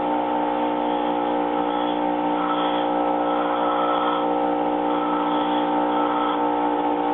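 Bench tool grinder motor running steadily with a hum while a high-speed steel tool blank is held to its aluminum oxide wheel to shape the tip. A harsher grinding noise comes in about two and a half seconds in and again about five seconds in, as the steel bears on the wheel.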